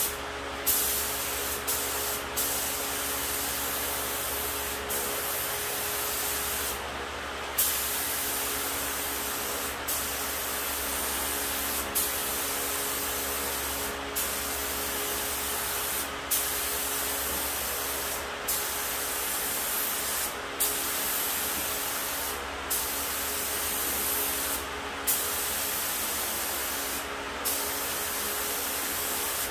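HVLP spray gun hissing as it sprays epoxy primer, its air set at about 28 PSI. The trigger is let off for a moment about every two seconds between passes, and each restart comes with a short burst.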